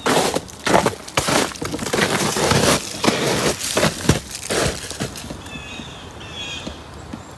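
Footsteps crunching through crusty spring snow, about two steps a second, stopping about five seconds in. A few faint high chirps follow near the end.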